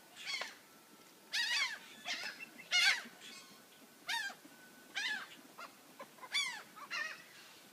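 Seagulls calling over and over while being fed scraps. Their short, nasal mewing cries rise and fall in pitch, about ten of them, some in quick pairs.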